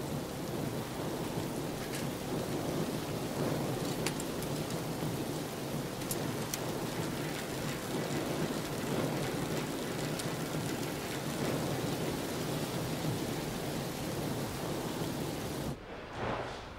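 Steady rain ambience: an even rushing hiss with a few faint ticks, cutting off abruptly about a second before the end.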